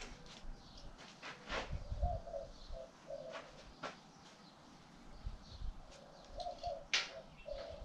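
A dove cooing in short phrases of low hooting notes, with a few sharp clinks and knocks of steel parts being handled on a metal work table, the loudest near the end.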